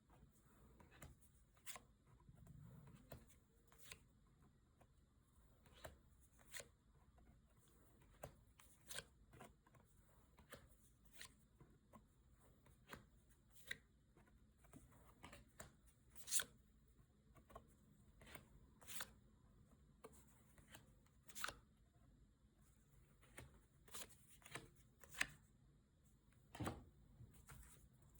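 Faint, irregular flicks and clicks of trading cards being handled and flipped through one at a time, about one or two a second.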